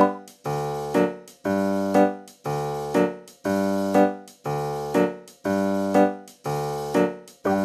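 Background music: a keyboard, piano-like, playing steady repeated chords about two a second. A higher melody comes in near the end.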